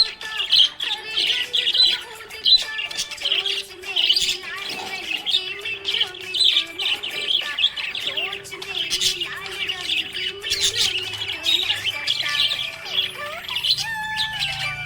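Budgerigars chirping and warbling in a fast, continuous chatter.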